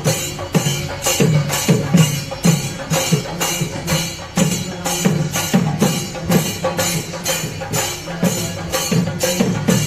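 Chenda melam ensemble playing: chenda drums beaten rapidly with hand cymbals (ilathalam) clashing on a steady beat, about two to three cymbal strokes a second.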